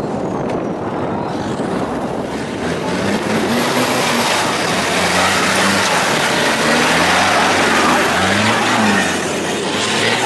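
Modified off-road 4x4's engine revving up and down repeatedly as it climbs over a loose dirt mound, louder through the middle, with the tyres churning through the dirt.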